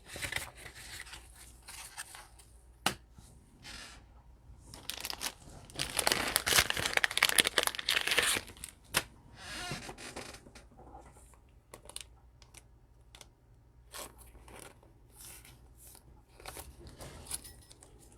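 A trading-card pack wrapper being torn open and crinkled, loudest for a few seconds about five seconds in, with light clicks and rustles of cards being handled around it.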